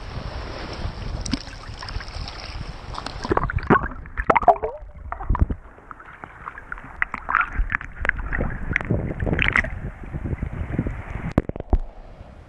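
Seawater sloshing and splashing around an action camera held at the surface. About three seconds in the sound turns muffled as the camera goes under, with irregular gurgling and bubbly splashes.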